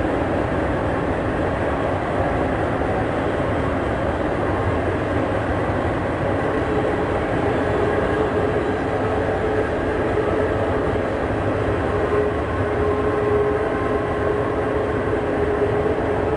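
Train running on the rails: a loud, steady rumble and rail noise, with a steady whine joining about six seconds in.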